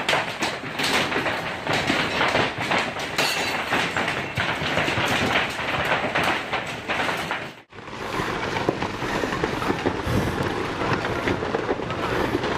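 Heavy hail pelting down: a dense, continuous clatter of hailstone impacts. It cuts out abruptly for a moment about two-thirds of the way through, then resumes.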